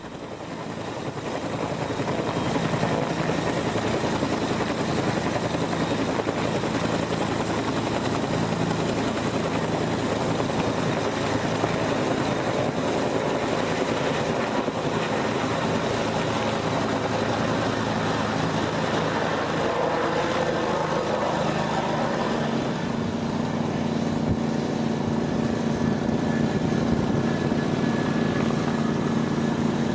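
Medium firefighting helicopter hovering close while bucketing from a ground tank with a 700-gallon Bambi bucket, its rotor and turbine running steadily. The sound swells over the first couple of seconds, and its low hum shifts a little higher about two-thirds of the way through.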